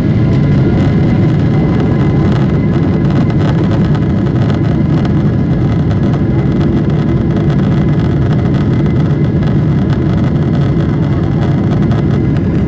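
Steady engine and airflow noise of a Boeing 777-300ER heard inside the economy cabin, a loud even rumble with no change in pitch.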